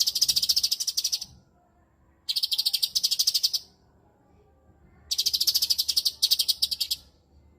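Cucak cungkok bird calling in three bursts of rapid, buzzy chattering, each about a second and a half long with short pauses between; the last burst breaks briefly in the middle.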